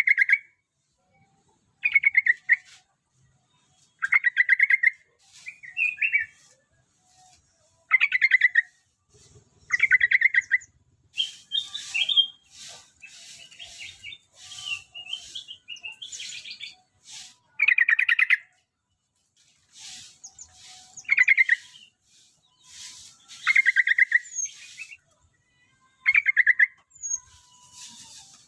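Yellow-vented bulbul (trucukan) singing: short bubbling phrases repeated about every two seconds, with a stretch of quicker, scratchier chattering in the middle.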